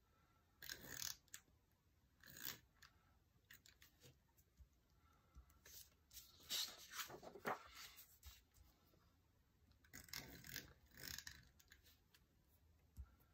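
Loose paper planner pages rustling and sliding on a wooden desk, with a handheld tape roller run across the paper. The sound comes in four short bursts, the longest in the middle.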